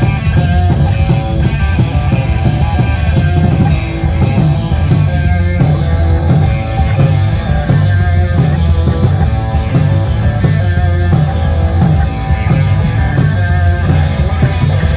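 Metal band playing loud live: electric guitar and a full drum kit, with a steady, evenly spaced drum beat under heavy low end.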